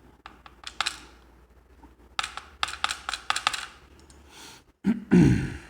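Small metal pins from a Mul-T-Lock Junior lock being tipped out and clicking onto a hard surface, in two quick clusters of sharp clicks. A louder thump comes near the end.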